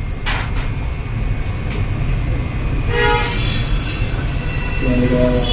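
A steady low rumble with a horn sounding for about a second and a half, beginning about three seconds in.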